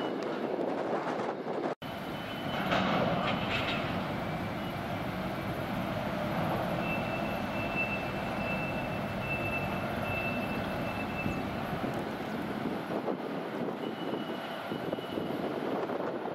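Steady, even rumble of distant container-terminal machinery, with a thin high tone sounding for a few seconds in the middle.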